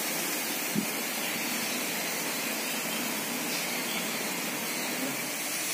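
Steady hiss of onion paste and curry leaves sizzling in oil in a steel kadai on a gas stove, with one light knock about a second in.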